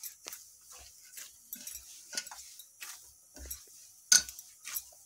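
A hand kneading crumbly pearl millet flour dough with warm water in a stainless steel parat: irregular soft knocks and scrapes of hand and dough against the steel, the loudest a little after four seconds.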